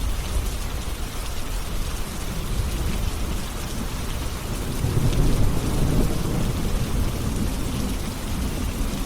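Steady rain falling, with a low rumble of thunder swelling about five seconds in and fading over the next two seconds.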